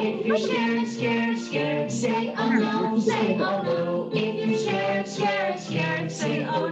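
A children's song: singing voices carry a melody over musical accompaniment.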